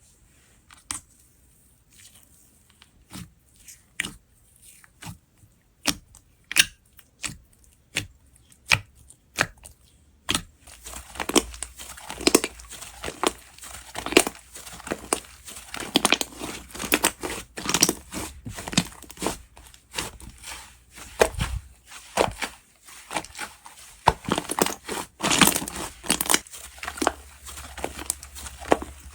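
Slime being squeezed and pressed by hand, making sticky pops and clicks about once a second at first. About a third of the way in it turns into a dense run of crackling and popping as the slime is worked faster.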